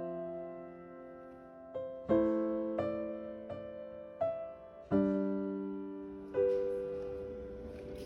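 Soft background piano music: slow sustained chords, a new one struck every second or two and left to fade.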